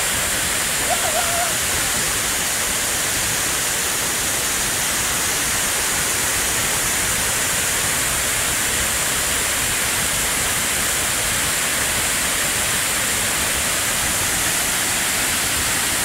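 Alakapuri waterfall pouring onto the rocks at its foot: a steady, unbroken rush of falling water.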